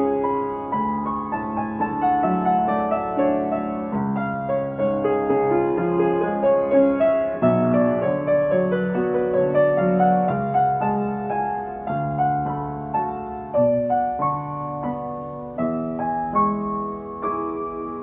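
W.Hoffmann T128 Tradition upright piano played with both hands: a melody over chords, the notes ringing into one another.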